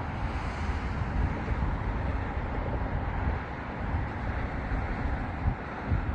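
Wind buffeting the microphone: an uneven low rumble with a steady hiss above it and small gusty peaks, with no clear tone or impact.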